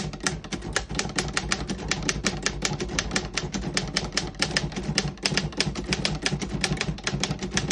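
1923 Royal 10 manual desktop typewriter typing a sentence: a quick, even run of type-bar strikes, about seven a second, with no skipped or sticking keys.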